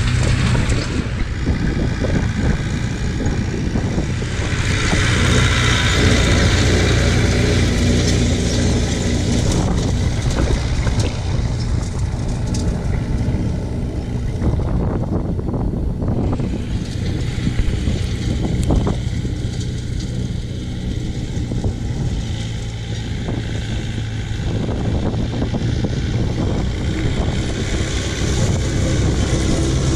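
Leyland 272 tractor's four-cylinder diesel engine running steadily at working speed while it pulls a hay rake.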